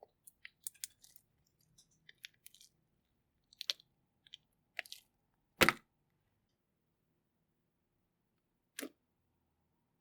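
Slime being squeezed and poked, giving scattered sharp crackles and clicks, with one louder knock a little past halfway and a last click near the end.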